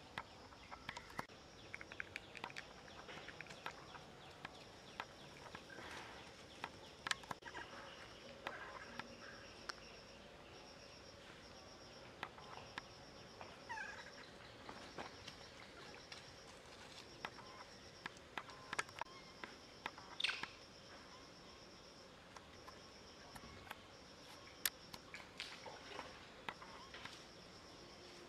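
Insects buzzing, a high steady drone that breaks off and starts again every second or so, with scattered sharp clicks and a few short chirps over it.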